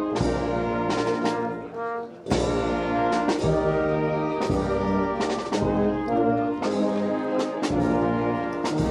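Brass band playing a slow processional march: held brass chords over a deep bass line, with a short break about two seconds in.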